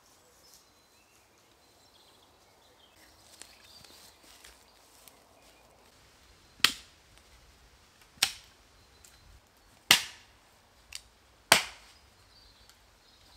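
A tool striking wood: four sharp strikes about a second and a half apart, with a lighter tap just before the last, after a few seconds of faint rustling.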